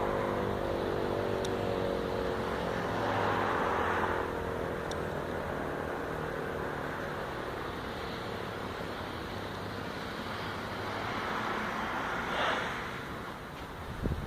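Federal Model 5 mechanical siren winding down after its blast: its tone slides slowly lower and fades over the first few seconds as the rotor coasts to a stop. After that there is a steady rush of background noise, with a brief swell of noise near the end.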